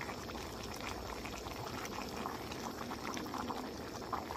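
Lidded pot of braised chicken in sauce bubbling at a steady boil, with many small bubble pops, as the liquid cooks down.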